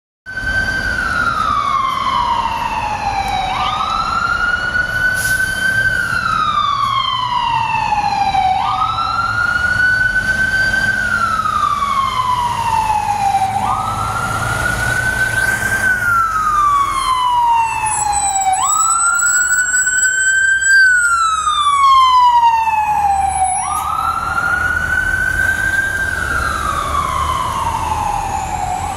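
Fire engine siren on a slow wail: each cycle climbs quickly to its top pitch, then glides down for about four seconds, repeating about every five seconds over the low rumble of the truck's engine. For several seconds past the middle, a second siren with faster, higher sweeps sounds faintly alongside.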